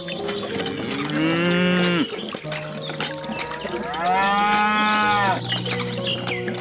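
Cow mooing twice: a moo of about a second, then a longer moo of about a second and a half.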